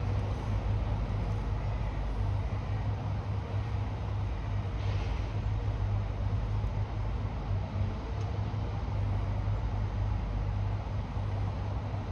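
Construction-site machinery running steadily with a low engine drone, with a brief hiss about five seconds in and a faint click or two.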